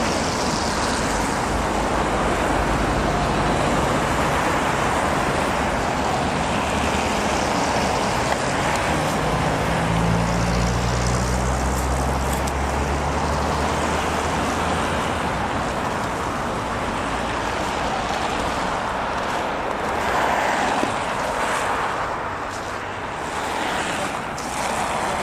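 Car on the move: steady engine and road noise, with the engine note rising for a few seconds around the middle as it speeds up.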